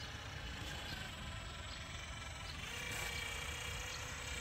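Cordless Milwaukee caulking gun's electric motor running with a steady whine from a little past halfway, driving the plunger to push out urethane for the window glass, over low outdoor background rumble.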